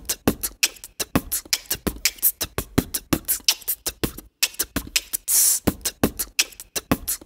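Hip-hop drum beat: low kick thumps under quick, sharp hi-hat-like clicks, cutting out for a moment about four seconds in, then a short hissing swell before the beat carries on.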